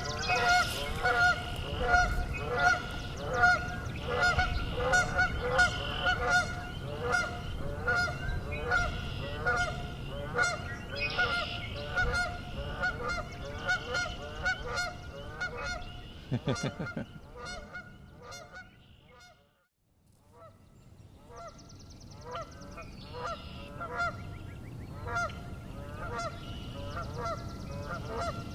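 Two Canada geese honking over and over in quick, harsh calls, about two a second; the birder takes them to be unhappy with him being near. The honking fades almost to nothing about twenty seconds in, then starts up again.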